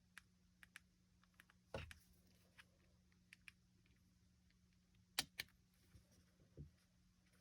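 Near silence with scattered faint clicks and a few light knocks, the loudest a little after five seconds in, over a faint steady hum.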